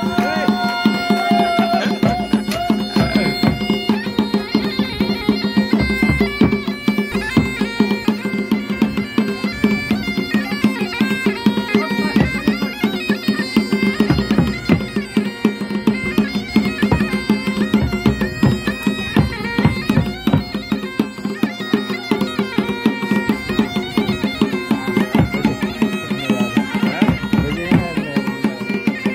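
Mashakbeen (Kumaoni bagpipe) playing a folk melody over a steady drone, with a dhol beaten with a stick keeping a steady beat.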